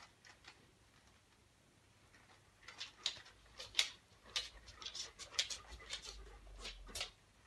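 A quick irregular run of soft rustles and taps, starting about three seconds in and stopping near the end, over a faint low rumble.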